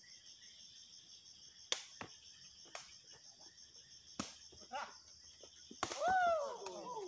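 Sepak takraw ball struck by players' feet: sharp smacks about a second apart, then a louder kick near the end followed at once by a player's loud cry that falls in pitch. A steady high chirring of insects runs underneath.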